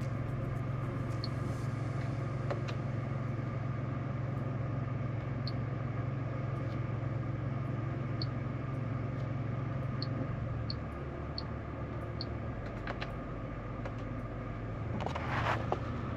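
Cabin noise of a Jeep Avenger with its 1.2-litre three-cylinder turbo petrol engine under way: a steady low engine and road drone that eases off about eleven seconds in, with a brief louder noise near the end.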